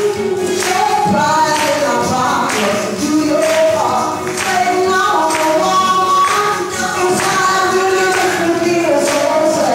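A woman singing a song into a microphone over a steady beat of about two strikes a second.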